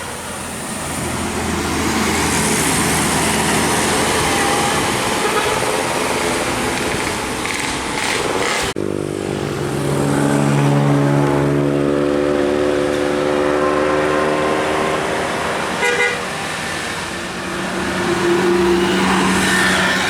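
Passing road traffic with a bus's multi-tone musical air horn (basuri/telolet horn). After an abrupt break a little under halfway through, the horn sounds loudly for several seconds with several tones at once. More horn tones come near the end.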